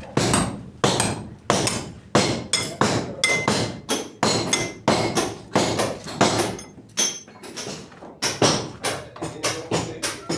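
Hammer striking hard material over and over, about two blows a second, each with a short ringing note.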